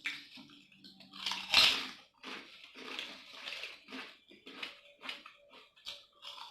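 Spicy potato chips crunched and chewed close to the microphone: a loud bite about one and a half seconds in, then a run of smaller crunches.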